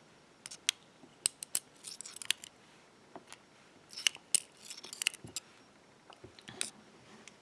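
Irregular small metallic clicks and taps of driver pins being taken out of an opened pin-tumbler lock cylinder and handled, in short clusters with quiet gaps between.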